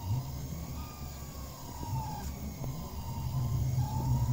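ATOM delta 3D printer printing: its stepper motors whine in tones that glide up and down as the print head moves, over a steady low hum.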